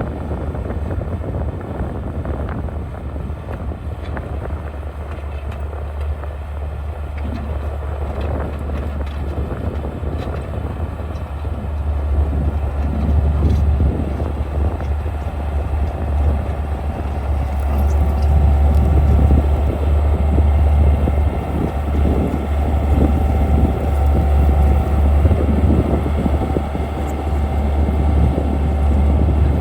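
Skid steer engine running steadily under load as it cuts and pushes dirt, getting louder about twelve seconds in and again a few seconds later.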